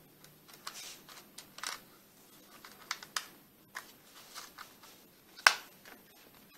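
Light plastic clicks and taps from fingers handling a JJRC H8C quadcopter's plastic arm and motor housing, irregular, with one sharper click about five and a half seconds in.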